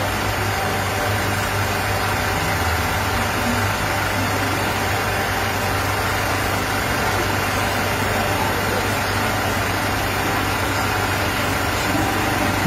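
Steady street traffic noise, with vehicle engines idling and a constant low hum.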